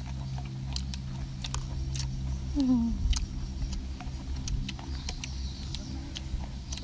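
Chopsticks clicking against the tray and crunchy raw vegetables being chewed, heard as scattered sharp clicks over a steady low hum. A short falling voice-like sound comes about two and a half seconds in.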